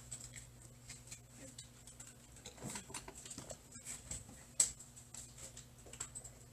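Chalk tapping and scraping on a blackboard during writing, as a run of short irregular clicks, one sharper than the rest a little after the middle, over a steady low hum.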